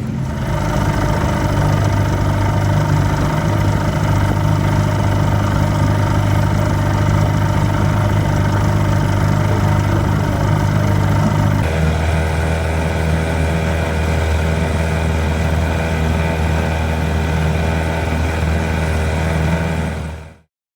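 25 hp Johnson twin-cylinder two-stroke outboard running steadily under way, firing on both cylinders now that its intermittent misfire is fixed. About twelve seconds in, its note shifts abruptly lower, and near the end it fades out.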